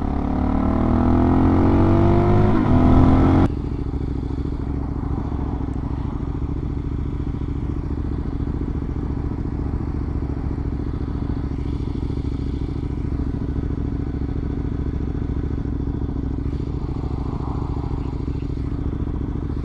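Suzuki DR-Z400 single-cylinder motorcycle engine pulling hard with its pitch rising, then, after an abrupt cut about three and a half seconds in, running at a steady, even speed.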